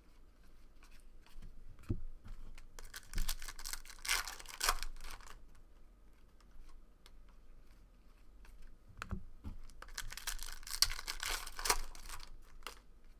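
Foil trading-card pack wrappers tearing and crinkling in two bursts, about three seconds in and again about ten seconds in. Small clicks of cards being handled fall between the bursts.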